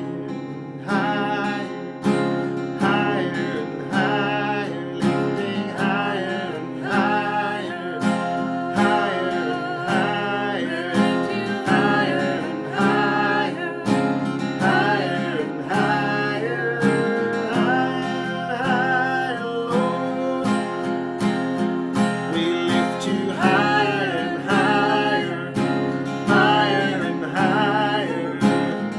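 Acoustic guitar strummed in a steady rhythm while a man and a woman sing a slow worship song.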